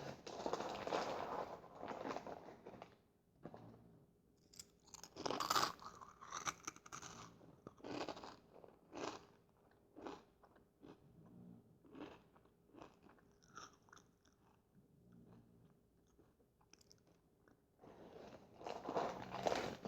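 Fritos corn chips being bitten and chewed close to the microphone. A dense run of crunching opens the stretch, sharper separate crunches of chewing follow and grow sparser, and another dense run of crunching comes near the end.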